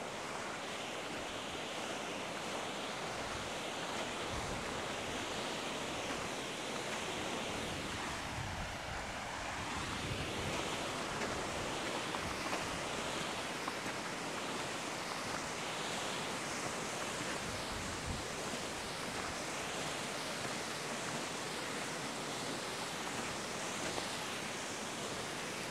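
Steady rushing of wind, with gusts buffeting the microphone in an uneven low rumble.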